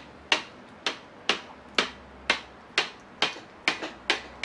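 Knife cutting down through a large gelatin grape jelly, its edge clicking against the steel tray beneath at an even pace of about two clicks a second, each with a short metallic ring.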